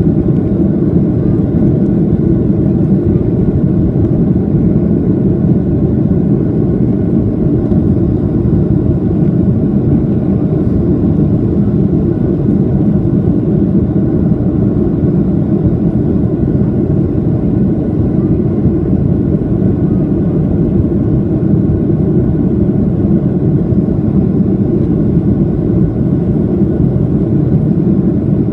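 Steady, loud, low-pitched cabin noise of a Boeing 737-800 climbing after takeoff: its CFM56-7B jet engines at climb thrust and the airflow over the fuselage, heard inside the cabin.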